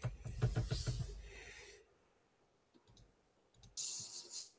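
A quick run of computer clicks at a desk, about seven a second, over the first two seconds. A short hiss follows near the end.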